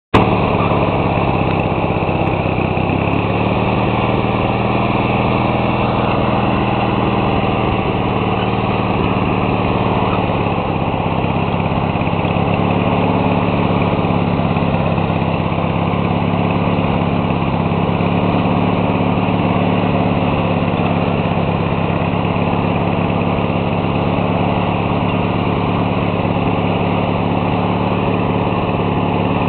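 Small engine of a homemade tractor running steadily. Its pitch steps up slightly about three and a half seconds in and dips briefly about ten seconds in.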